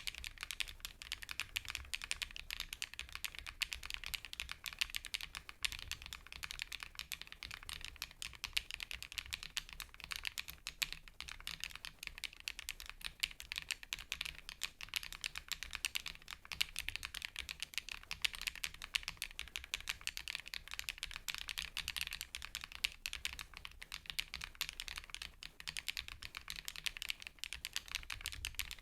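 Continuous fast typing on a KiiBoom PHANTOM81 V2 transparent mechanical keyboard: a dense, unbroken run of keystrokes with a light, fairly high-pitched 'kotokoto' tock.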